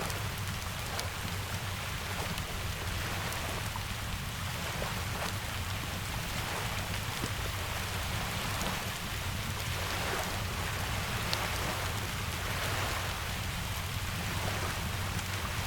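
Steady rain falling, with scattered small pops and crackles of a wood fire and a low steady rumble beneath.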